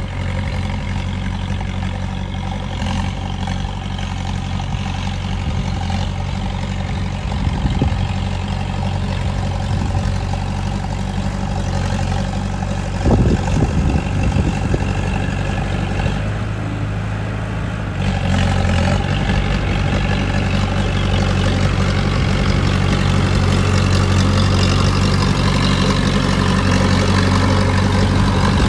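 Heavy diesel engine of earthmoving machinery running steadily. There is a brief louder burst about halfway through, and the engine gets louder about two-thirds of the way in, as if put under more load.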